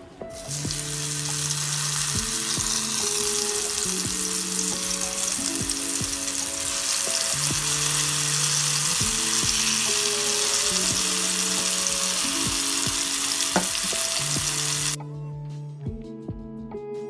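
Pineapple pieces sizzling as they fry in hot oil in a black pan. The sizzle starts as the first piece goes in, grows a little louder about halfway through, and cuts off suddenly near the end. Soft background music plays underneath.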